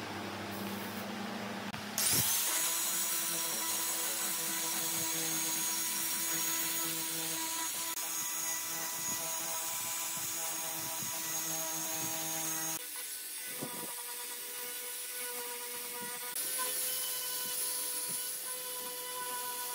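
Wood lathe running with a tool working the spinning workpiece: a steady whine under a wide hiss. The sound changes abruptly a few times, about two seconds in, past the middle and again later.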